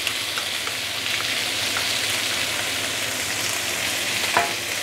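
Chunks of marinated chicken sizzling steadily in hot oil in a wok, searing until they char on the surface.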